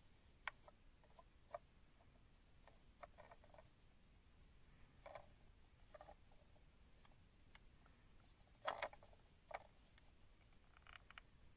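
Near silence: room tone with faint, scattered small clicks and taps, the loudest a short cluster about nine seconds in.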